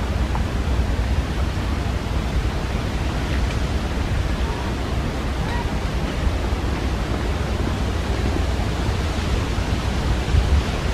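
Steady rushing noise with a strong low rumble, wind on the microphone, with a few faint brief high sounds now and then.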